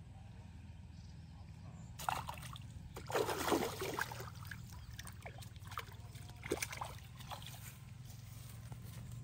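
A hooked tilapia splashing and thrashing at the pond surface as it is hauled in on a bamboo pole, in several splashes, the loudest about three to four seconds in.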